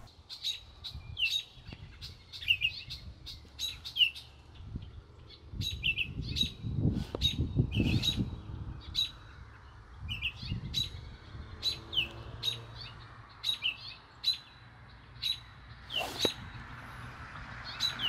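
Songbirds giving short, sharp alarm calls, repeated about twice a second: mobbing calls raised against a red-tailed hawk perched in the tree.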